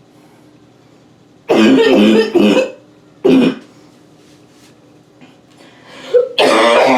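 A woman coughing in hard bouts: a loud burst of coughs about a second and a half in, one short cough soon after, then another loud burst of coughing near the end.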